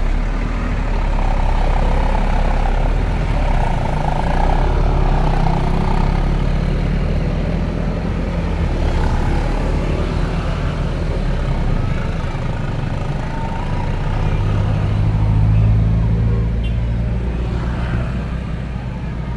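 Large diesel tour bus engines running and passing close by, with road and traffic noise. The engine sound grows loudest about fifteen seconds in.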